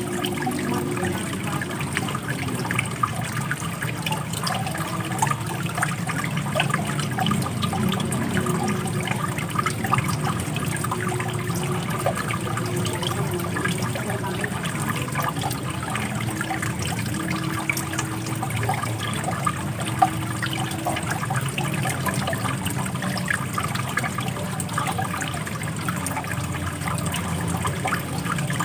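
Running water splashing and trickling steadily, a continuous gush with many small splashes.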